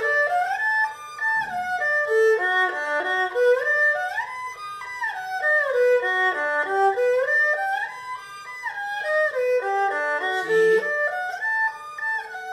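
Erhu played solo, bowing a broken-chord arpeggio exercise: quick separate notes stepping up and back down again, several times over.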